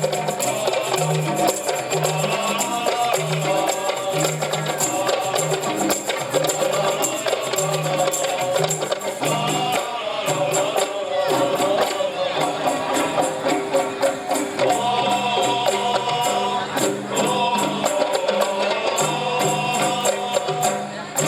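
Qasidah music: rebana frame drums and jingling tambourine keep a steady beat under a flowing melody. The low drum beat drops out for a few seconds about halfway through, then returns.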